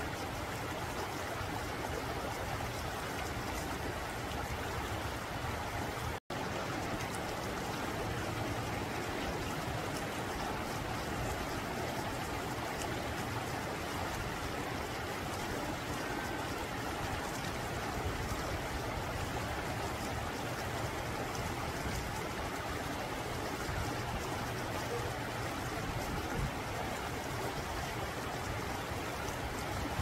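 Shallow rocky mountain stream running steadily over boulders and small cascades. The sound cuts out for an instant about six seconds in.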